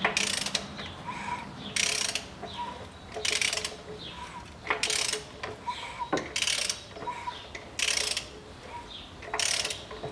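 Ratchet wrench turning the crankshaft of a Ford Ranger 2.5 turbodiesel over by hand, in repeated strokes with a burst of ratchet clicking about every second and a half. The engine is being rotated a few turns to check that the newly fitted timing belt and camshafts turn freely.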